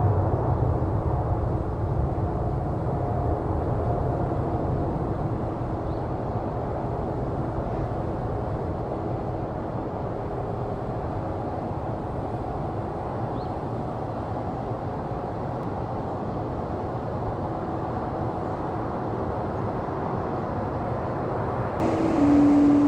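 A Boeing 777F freighter's jet engines after takeoff: a steady rumble with a faint whine that gradually fades as the plane climbs away. Near the end it cuts abruptly to another airliner's engines, louder, with a steady hum.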